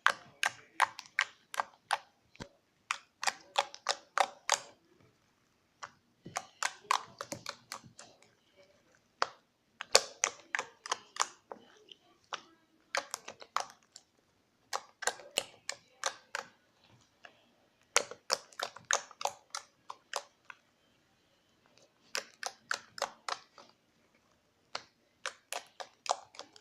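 Slime being squeezed and poked by hand, giving runs of sharp wet clicks and pops from trapped air, about five a second, in bursts of one to two seconds with short pauses between.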